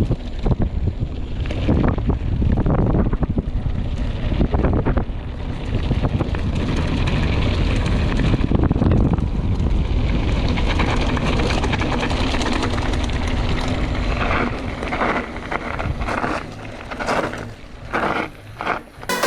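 Mountain bike descending at speed: wind noise on the action camera's microphone, mixed with tyre noise and frequent knocks and rattles from the bike over rough ground. Near the end the noise drops and turns patchy.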